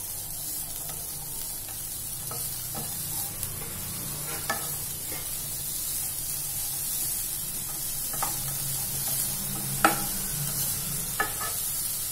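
Wooden spatula stirring grated coconut and jaggery in a ceramic-coated nonstick pan over the heat, with a steady faint sizzle. The spatula knocks sharply against the pan a few times, loudest a little before ten seconds in.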